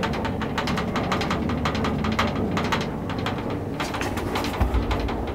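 Old elevator car in motion, rattling and clicking rapidly and irregularly over a steady low hum.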